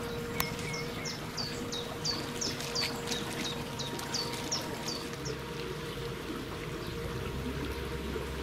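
A small songbird calling a quick run of about a dozen high, downward-sliding notes, roughly two or three a second, over the steady hum of the boat's motor. A low rumble comes in about halfway through.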